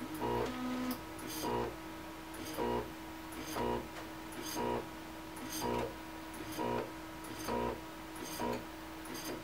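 3D printer stepper motors making short pitched moves, about one a second, each with a click, over a steady hum: the printer stuttering through a faulty Marlin homing sequence.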